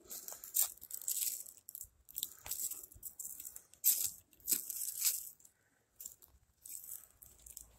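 Footsteps on dry leaves and twigs: an irregular run of crisp crunches and rustles, with a brief lull about three-quarters through.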